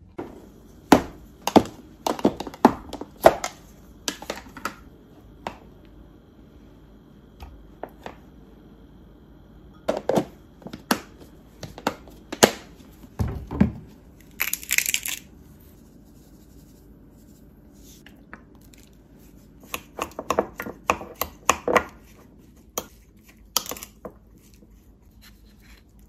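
Kitchen handling sounds: clusters of short, sharp clicks and knocks from a utensil on a ceramic bowl and from containers being set down, with a brief hissing rattle of a seasoning shaker about fifteen seconds in.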